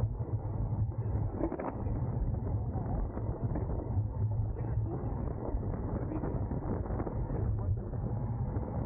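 Wind buffeting the microphone of a camera riding along on a racing bicycle, a steady low rumble with scattered small rattles and ticks.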